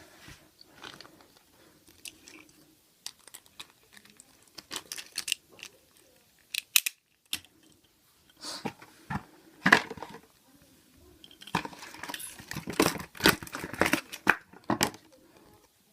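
Packaging being handled and opened: crinkling and tearing with sharp clicks, in irregular bursts that grow busier and louder in the last few seconds.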